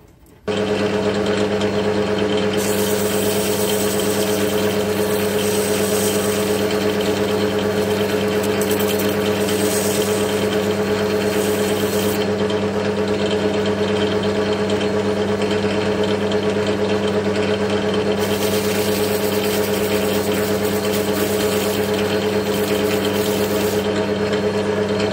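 Metal lathe starting up about half a second in and running with a steady motor hum, while emery cloth on a stick is worked inside the bore of a spinning steel roller: a high hissing scratch in two long spells, the light final polish that brings the bore to size. The lathe shuts off at the very end.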